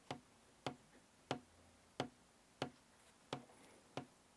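Faint, evenly spaced ticking, about three ticks every two seconds.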